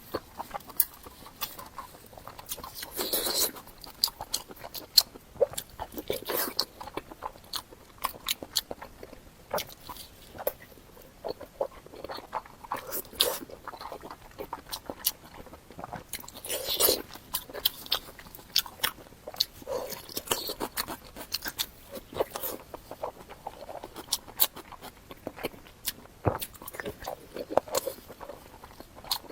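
Close-miked eating sounds: repeated bites and chewing with many short, sharp crunches throughout.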